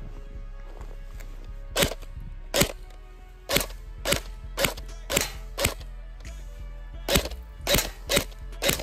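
Airsoft gun firing single shots: about eleven sharp cracks at roughly half-second intervals, with a pause of over a second around the middle.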